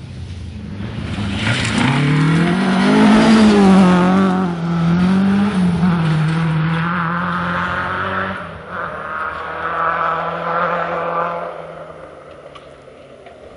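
Rally car on a gravel stage, its engine revving hard. The note climbs as the car comes through, holds high with short lifts and rises again, then fades as the car pulls away near the end.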